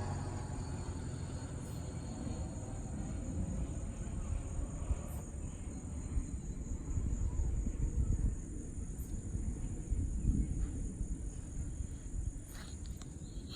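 Insects trilling steadily in a high, unbroken drone, over a low, uneven rumble.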